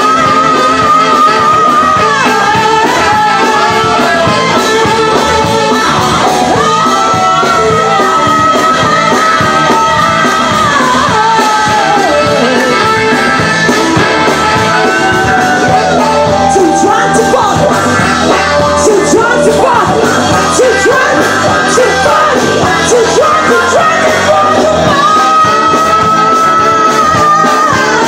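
Live band playing with a woman singing into a microphone, holding long sung notes, recorded loud on a mobile phone among the audience.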